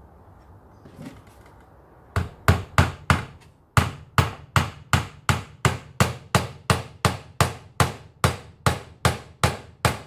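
Hammer driving a small nail into the edge of a wooden box. It taps steadily, about three blows a second, starting about two seconds in.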